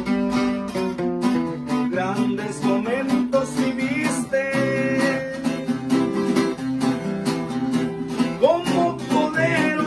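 Instrumental interlude of a Mexican corrido: guitars strummed in a steady rhythm, with a wavering melody line played over them.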